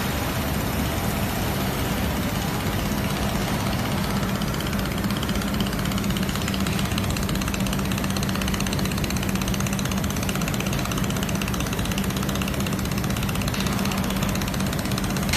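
Steady machine hum: a constant low drone with an even hiss over it, with no breaks or changes.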